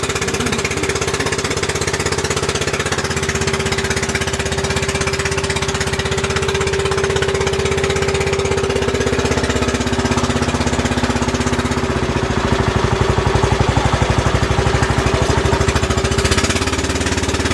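Outrigger boat's engine running steadily under way, a loud rapid chugging rattle with a steady hum, growing somewhat louder about twelve seconds in.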